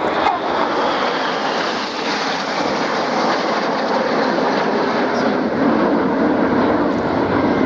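BAE Hawk T1 jets of the Red Arrows flying past in formation: loud, steady jet engine noise.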